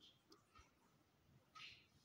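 Near silence, with a faint rustle of notebook paper about one and a half seconds in as the pages are handled.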